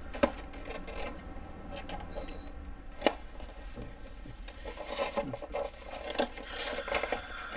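Clear plastic packaging tray and cardboard box being handled, plastic rubbing and scraping, with two sharp clicks: one just after the start and one about three seconds in.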